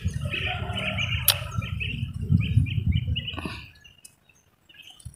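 Small birds chirping, quick repeated short calls, over a low rumble that dies away a little over halfway through, with one sharp click about a second in.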